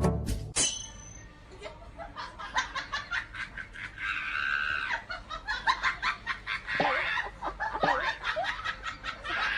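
Laughter in quick repeated bursts.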